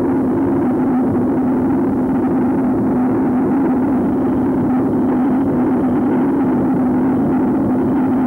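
Many horns blown together by a marching group, making one loud, steady drone that wavers around a single low pitch with a rough, buzzing edge.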